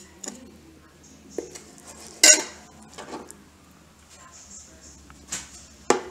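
Kitchen knife knocking against a cutting board as a fish fillet is trimmed: several sharp clacks at uneven intervals, the loudest a little over two seconds in.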